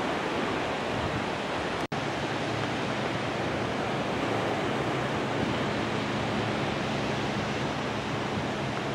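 Steady wash of surf breaking on a sandy beach, a continuous even noise with a brief dropout about two seconds in.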